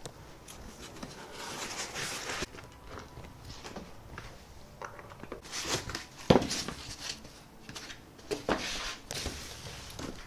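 Foam packing being pulled out of a shipping box and handled: several bouts of scraping and rustling, with a sharp knock about six seconds in.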